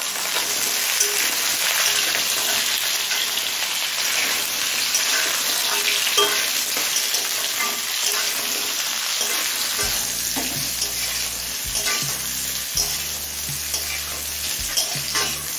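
Potato and spiny gourd (kakrol) pieces sizzling steadily as they fry in hot mustard oil in a kadai, with the scrape and tap of a spatula stirring them.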